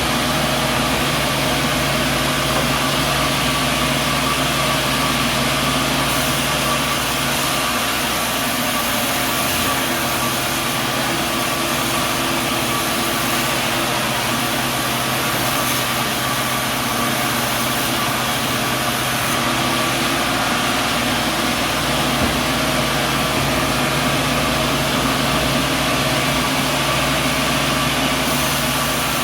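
Sawmill machinery running steadily: an even engine-like hum with a few steady tones over a broad hiss, with no sharp knocks or changes.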